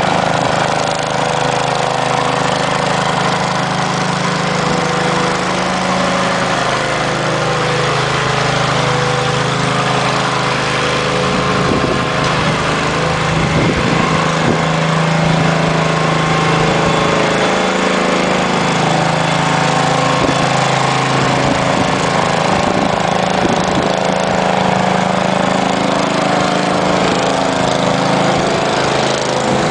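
A small engine running steadily at a constant speed, with a wide hiss over it.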